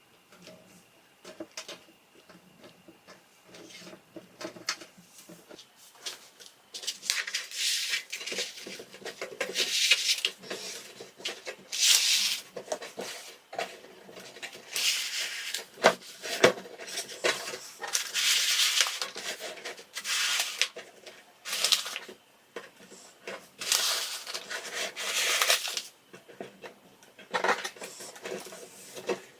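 Vinyl contact paper being handled, peeled from its backing and rubbed down onto steel shelf panels: repeated crinkling and rubbing swishes with light clicks and taps. The handling is faint at first and gets louder after the first several seconds.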